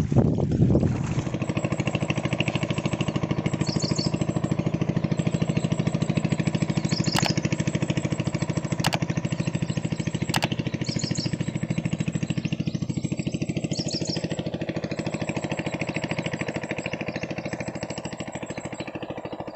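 An engine running steadily at an even speed, with three sharp clicks near the middle.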